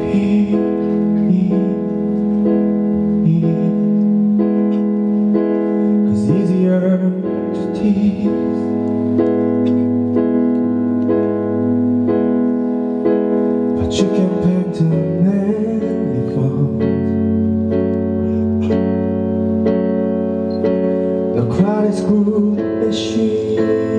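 Piano sound from a Kurzweil PC88 stage keyboard playing held chords over low bass notes: an instrumental passage of a live pop song.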